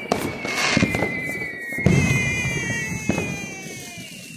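Fireworks going off: a long whistle that slowly falls in pitch over a steady hiss, with several shorter whistles layered on it about two seconds in. Sharp bangs cut through, the loudest about two seconds in.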